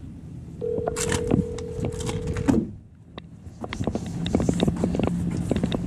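Ringback tone of an outgoing mobile phone call heard from the phone's speaker: one steady ring lasting about two seconds, starting about half a second in, meaning the call is ringing and not yet answered. Footsteps scuff and tick on asphalt throughout.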